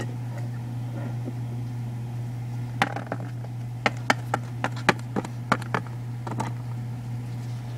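Handling noise: a run of about a dozen sharp little clicks and taps in the middle, over a steady low hum.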